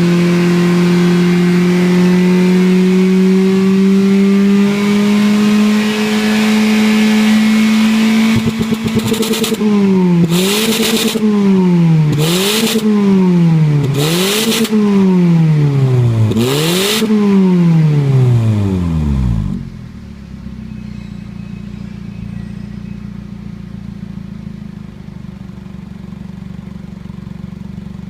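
Toyota Wish's 1ZZ-FE 1.8-litre inline-four running through a modified Kakimoto aftermarket muffler with inner silencer. The revs are held high and steady for about nine seconds, then blipped four times about two seconds apart. It then falls back to a much quieter steady idle.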